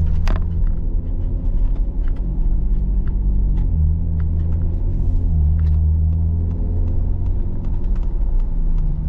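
Ford Explorer ST's twin-turbo V6 through a Thermal 3-inch cat-back exhaust, heard from inside the cabin while driving: a steady, low exhaust note whose pitch shifts up and down a few times as the revs change.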